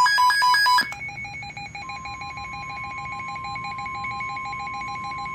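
Weather radio emergency alert tones for a tornado warning: a fast two-tone electronic warble for the first second, then a rapid pulsing beep. About two seconds in, the steady 1050 Hz NOAA Weather Radio warning alarm tone joins it and holds.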